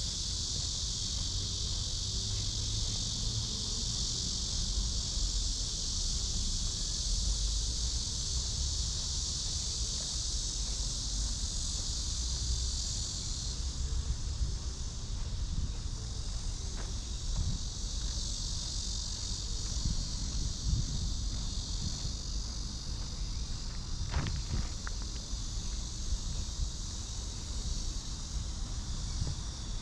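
Chorus of cicadas shrilling in a steady, high, unbroken drone, easing a little about halfway through, over a low, uneven rumble.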